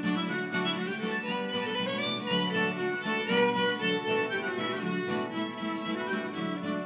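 Instrumental break played on harmonica over strummed acoustic guitar, with a violin in the mix.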